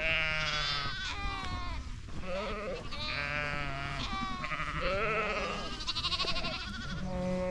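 A flock of sheep and lambs bleating, many wavering calls overlapping one another without a break, high lamb bleats mixed with lower ones.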